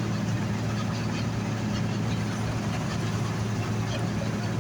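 John Deere 7700 combine running steadily, heard from inside its cab: an even, low engine drone under a constant mechanical rush.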